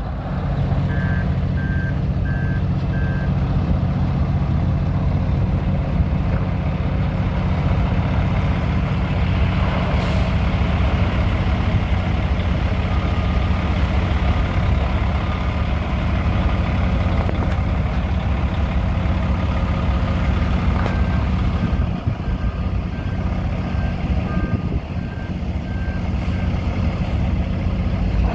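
2005 Freightliner Columbia truck tractor's diesel engine running with a steady low drone as the truck is driven around. A backup alarm beeps in short even runs, about a second in and again in the latter part.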